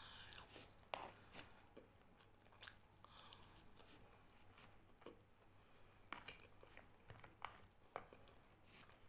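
Faint chewing of a person eating, with scattered soft clicks of the mouth and teeth.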